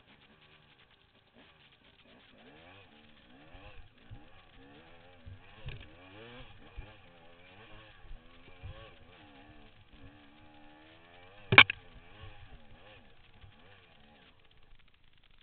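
Dirt bike engine revving up and down under load while climbing a steep dirt slope, its pitch constantly rising and falling. A single sharp knock about three-quarters of the way through is the loudest sound.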